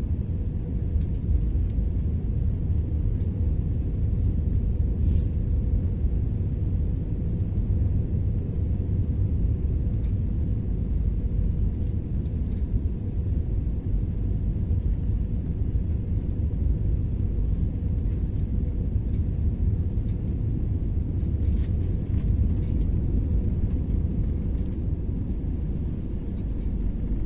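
Airliner cabin noise on final approach: a steady low rumble of engines and airflow heard inside the cabin, with a faint steady hum above it.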